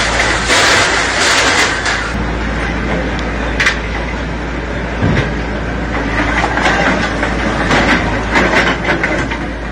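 Bulldozer engine running under load with clattering and knocking of demolition debris, a dense, noisy rumble with scattered sharp knocks.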